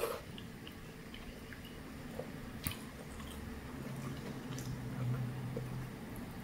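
Quiet eating of noodle soup: chopsticks and a metal spoon stirring in a glass bowl give scattered faint clicks, with one sharper click nearly three seconds in, and soft chewing. A low hum runs for about two seconds in the second half.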